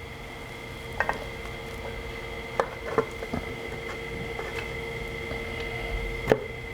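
Light metal clinks and knocks as an engine side case cover and impeller shaft are handled and fitted onto the engine: a couple about a second in, a few more around two and a half to three and a half seconds, and the loudest near the end, over a steady faint hum.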